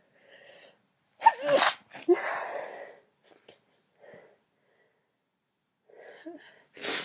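A young woman sneezing loudly about a second in, a sharp voiced burst followed straight away by a longer breathy one. Faint breaths follow, and another sharp burst comes right at the end.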